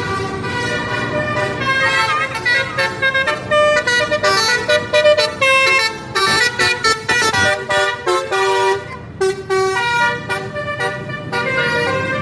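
Basuri musical vehicle horn playing a tune: held tones at first, then a run of short notes stepping up and down in rhythm.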